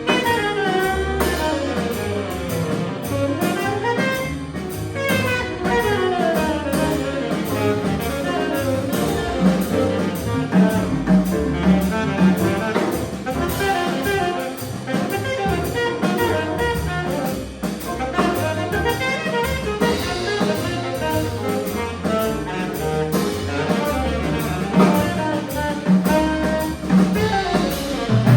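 A live jazz group playing through a sound check: a horn carries a moving melody over walking bass notes and drum kit.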